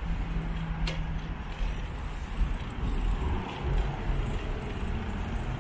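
Riding noise from a bicycle on a sidewalk: a steady low rumble of wind on the microphone and tyres on pavement, with a single sharp click about a second in.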